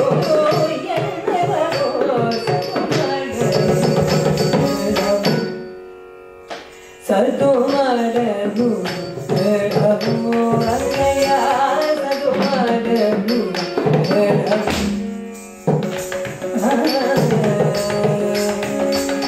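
Carnatic music with a singer and drum accompanying Bharatanatyam dance. The music fades out about six seconds in, comes back a second later, and drops out briefly again about fifteen seconds in.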